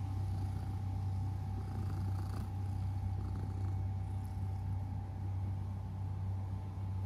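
A cat purring steadily right against the microphone: a continuous low rumble.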